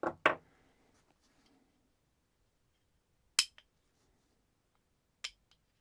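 A few sharp metallic clicks and clinks of small parts and tools being handled while an AR-10 lower receiver is assembled and the hammer pin is seated: two right at the start, a louder one about three seconds in with a softer one just after, and one more near the end.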